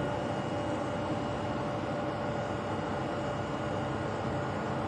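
Belt conveyor running: a steady mechanical drone with a few thin, steady whining tones over it.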